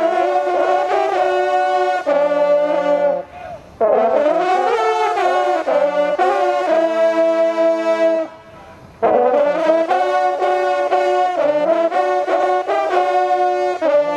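A group of large coiled parforce hunting horns playing a fanfare together in several parts. It comes in three phrases, with short breaks about three seconds and eight seconds in.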